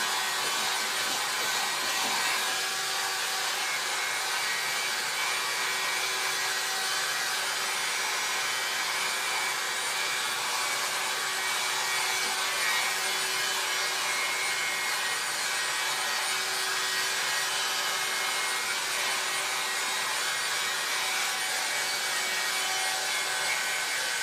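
Helen of Troy hot-air styling brush running, its fan blowing with a steady hiss and a faint constant hum while it is worked through a beard.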